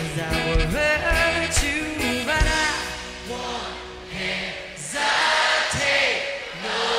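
Live pop-rock concert: a male lead singer with acoustic guitar and drums, his voice breaking off about two and a half seconds in. From then on the crowd cheers and sings along loudly over the band, which keeps playing.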